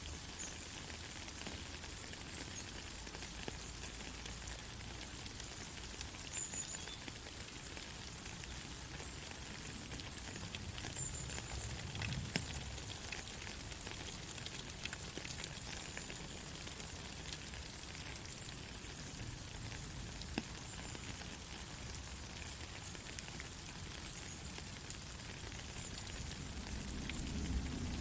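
Steady rain falling, a fine hiss dotted with many small drop ticks. A low rumble builds near the end.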